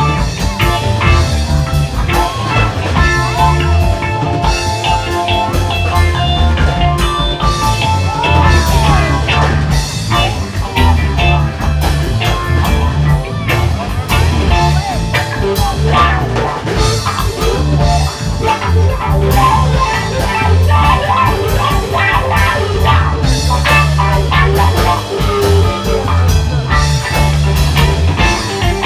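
Rock music with electric guitar, bass and drum kit, in a bluesy, psychedelic style with a steady beat.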